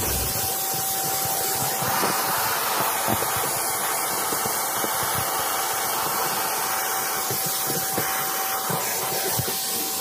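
Prestige Typhoon 05 wet-and-dry vacuum cleaner with a 1200-watt motor, running steadily: a rushing hiss of suction over a steady motor whine, as its nozzle is worked along a car dashboard.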